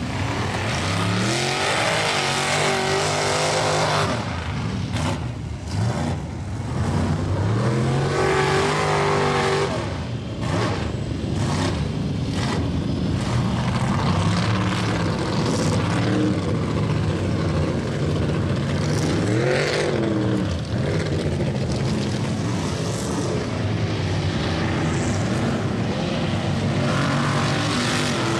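Mega mud trucks' engines revving hard and easing off again and again as they drive through a mud bog, the pitch sweeping up and down several times, with the hiss of the tires churning and spraying mud.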